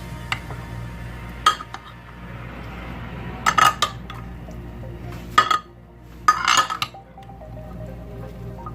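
A spoon clinking against a bowl while the chana chaat ingredients are mixed, in a few short bursts of clinks.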